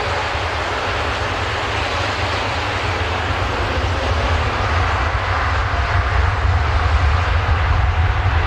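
Rolls-Royce Trent 1000 turbofans of a Boeing 787 Dreamliner running as the airliner rolls along the runway: a steady jet roar with a deep rumble, growing slightly louder over the last few seconds.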